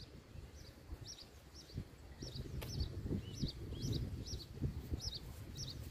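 Small birds chirping, short high notes repeated about two or three times a second, over a low, uneven rumble of wind on the microphone.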